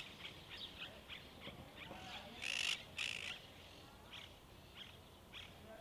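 Monk parakeets calling: a string of short chirps, with two louder, harsher calls about two and a half and three seconds in.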